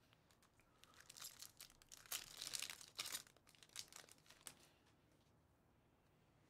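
Wrapper of a Bowman Chrome baseball card pack being torn open and crinkled by hand: a faint run of crackles and tearing lasting about four seconds, then stopping.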